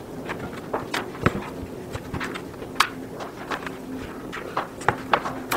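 Irregular clicks and knocks of hard plastic as the interior padding is pulled out of a Riddell Speedflex football helmet shell, over a faint steady hum.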